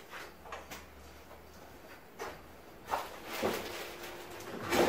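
Faint knocks and scuffs of a wooden 1x3 strip being handled and wedged into a bending jig, with footsteps; a few light taps early on, and a louder run of wooden knocks in the last two seconds.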